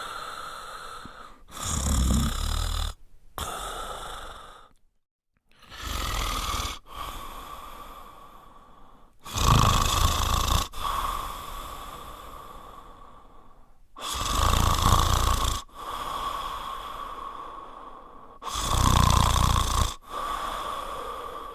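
A French Spaniel dog snoring in its sleep: slow, regular snores about every four seconds, five in all. Each loud snore lasts a second or so and trails off into a quieter, fading breath.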